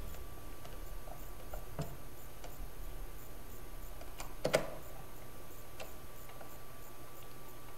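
A screwdriver driving a screw into a plastic electronics case: faint, irregular small clicks, with one sharper, louder click about four and a half seconds in.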